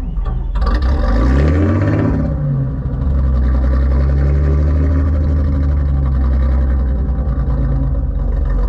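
Dutch barge's inboard diesel engine starting on its cold-start lever, which feeds extra fuel from the fuel pump to the cylinders. It fires about half a second in, revs up over the next two seconds, then settles into a steady idle.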